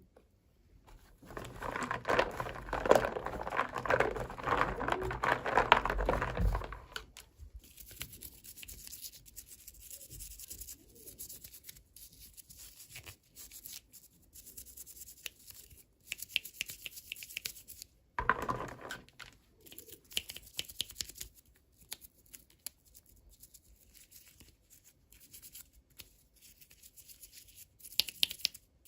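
Toy packaging being torn open and crinkled by hand, loudest for several seconds near the start, then quieter rustling and small clicks of handling, with short bursts of crinkling past the middle and near the end.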